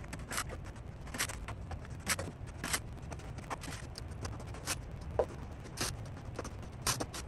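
Copper Cleco sheet-metal fasteners clicking and clinking as they are handled and set into the stabilizer skin, a couple of light ticks a second, over a low steady hum.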